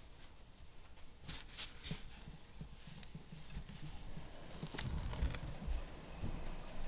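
Handling noise from a moving handheld camera: scattered light clicks and rubbing, a sharper click shortly before five seconds in, and low thumps that grow in the second half.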